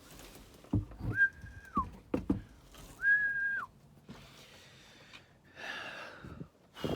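Someone whistling short, flat, clear notes, twice, each about half a second long and sliding down in pitch at the end, with a few soft low knocks in between.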